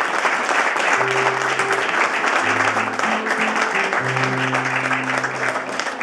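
Audience applauding, with a few long, steady low instrument notes held underneath.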